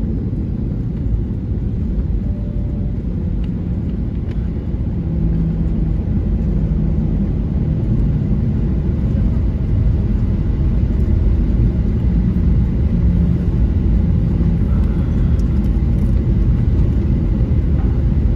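Steady low rumble inside an airliner cabin as the plane rolls along the runway after landing: engine and rolling noise, growing a little louder about halfway through.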